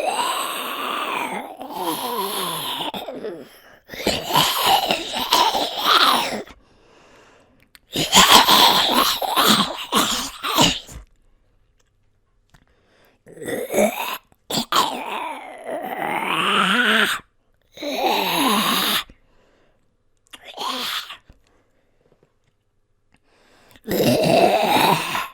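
A person growling and groaning in a zombie voice: a series of about eight raspy vocal growls, each a second or few long with sliding pitch, parted by short silences.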